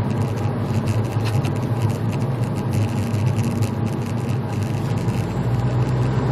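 Cabin noise of a 2007 VW GTI cruising at a steady speed: an even low engine hum mixed with tyre and road noise.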